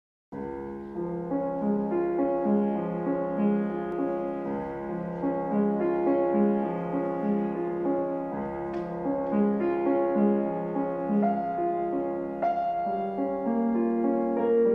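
Gentle keyboard music, piano-like, playing a repeating pattern of held notes as opening title music; it starts abruptly just after the beginning.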